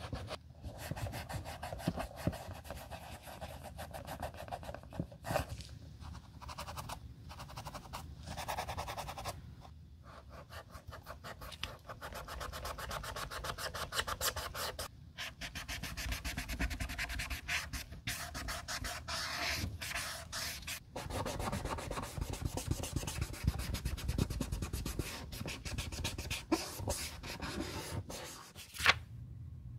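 A cotton wad held in a metal tool rubbed rapidly back and forth over white leather, scrubbing dirt off a sneaker. The strokes are quick and run in long spells with a few short pauses, and there is one sharp tap near the end.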